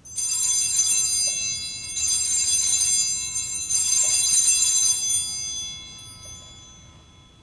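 Altar bells (Sanctus bells) shaken in three rings, each a bright jingling cluster of tones that dies away after the third. They mark the elevation of the consecrated host at Mass.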